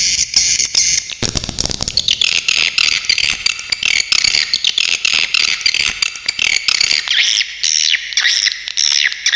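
Swiftlet calls: a dense, continuous chatter of rapid, sharp, high chirps and trills.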